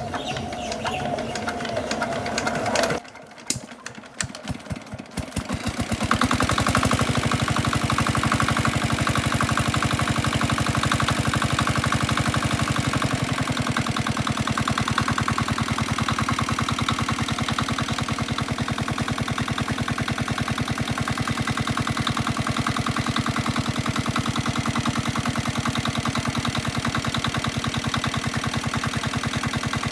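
Small single-cylinder diesel water-pump engine catching after a few slow knocks about four to five seconds in, then running steadily with an even, fast chugging beat. Its speed drops slightly about halfway through.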